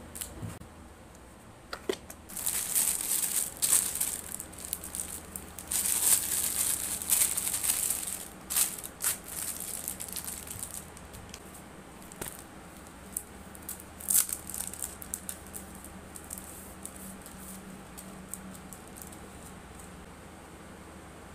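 Crinkly packaging being handled while an order is packed: two spells of crinkling and rustling in the first half, then scattered clicks and taps that die away, leaving only a faint low hum for the last several seconds.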